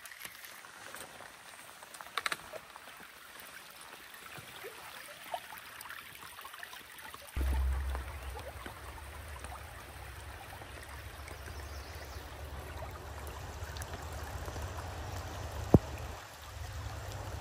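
Steady rush of running water. About seven seconds in a low rumble comes in and the whole sound gets louder, with a single sharp click near the end.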